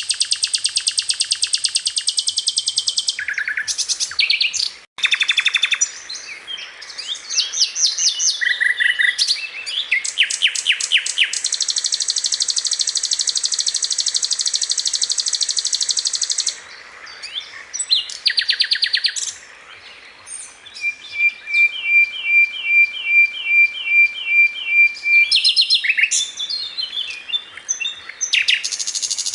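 Recorded songbird song: long, dense, rapid trills alternating with sliding whistled notes and short chips, with a run of about a dozen evenly repeated notes in the second half.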